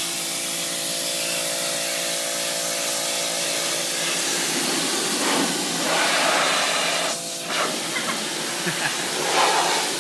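Pressure washer spraying: a loud, steady hiss of the high-pressure water jet over a steady hum. About halfway the hum drops away and the hiss becomes uneven, coming in surges as the spray moves across the boat.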